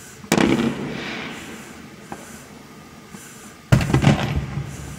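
Two bangs of aerial fireworks about three and a half seconds apart, each trailing off in a rolling echo. The second, near the end, is louder and deeper.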